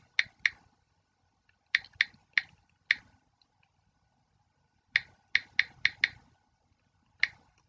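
Computer keyboard being typed on in short bursts of a few sharp key clicks, with pauses of a second or two between bursts.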